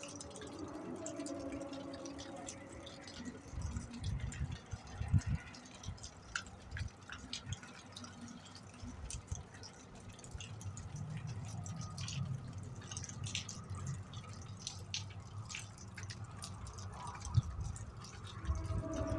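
A steady, low, droning hum with a few overtones, heard as a strange noise in the sky, fades out about two seconds in and swells back near the end. In between, scattered dripping ticks and a few low thumps.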